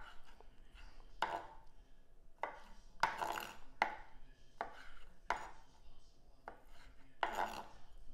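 Kitchen knife cutting rounds of smoked chicken sausage into quarters on a plastic cutting board. Short knocks of the blade on the board come roughly once a second, unevenly spaced.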